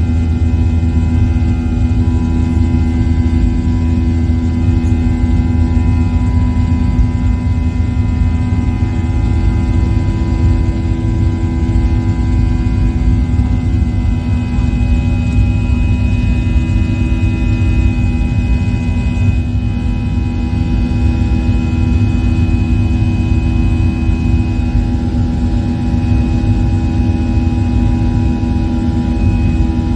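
Airliner engines heard from inside the cabin while climbing after takeoff: a steady low rumble with several steady humming tones on top.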